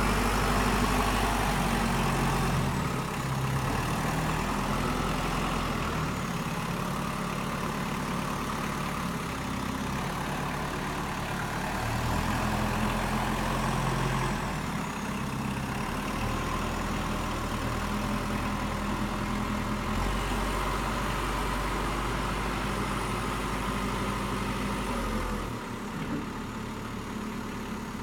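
Kubota M59 backhoe's diesel engine running, its speed stepping up and down several times as it works, then settling lower and quieter near the end.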